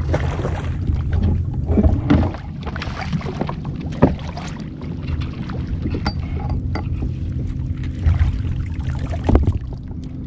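Handling sounds and sharp knocks on a kayak, about three of them standing out, over a steady low hum.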